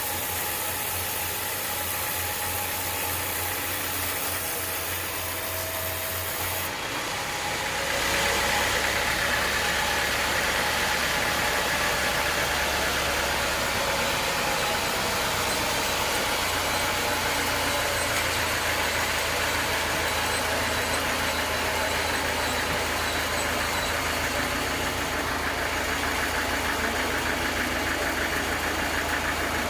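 Sawmill machinery running steadily, with a sudden change about seven seconds in, after which it runs a little louder with a faint high whine.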